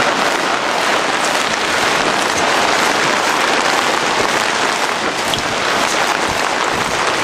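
Heavy rain falling on a fabric canopy tent overhead, a loud, steady rush of noise with no letup.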